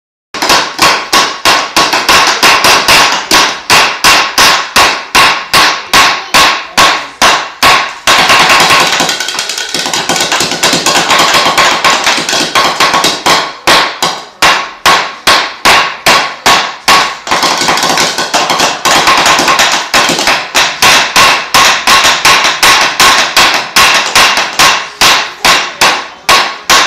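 Hard plastic toys being banged over and over, a fast, even run of loud knocks at about four a second.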